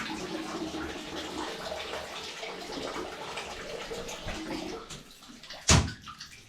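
Tap water running into a clogged bathtub. The water stops about five seconds in, followed by a single sharp knock.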